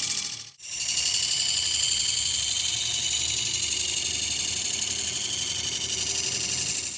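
Sickle teeth sharpening machine running with a steady high whine, broken by a brief gap about half a second in.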